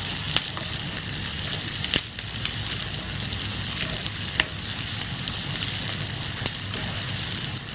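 Sliced onions sizzling steadily as they fry and soften in hot oil in a pan, stirred with a spoon. A few sharp clicks sound now and then.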